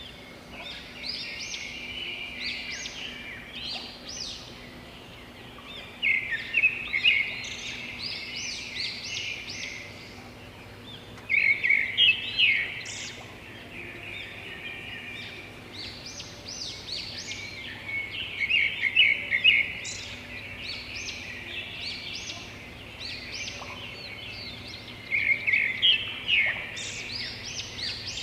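Small birds chirping in clusters of quick, high calls that come back every few seconds, over a faint steady low hum.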